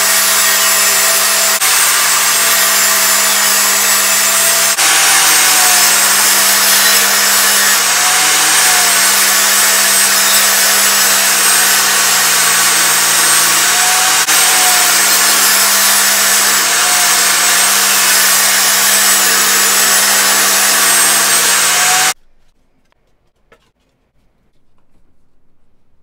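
DeWalt DWE7492 jobsite table saw running and ripping plywood: a loud, steady motor-and-blade whine whose pitch dips slightly now and then as the blade takes the load. It cuts off suddenly near the end.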